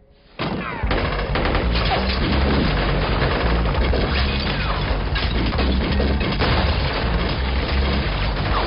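Film gunfight sound effects: dense, rapid gunfire from automatic weapons and pistols with bullets striking stone and sending debris flying, starting suddenly about half a second in.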